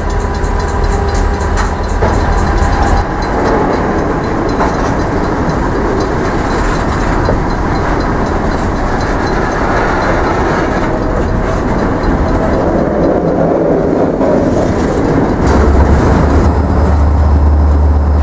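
Freight train of covered hopper cars rolling past, with a steady rumble and clatter of steel wheels on the rails. A deep low hum joins in near the end.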